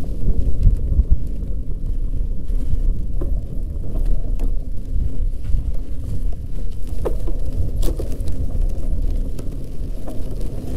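Steady low rumble of a bicycle being ridden, with a few sharp clicks and rattles scattered through.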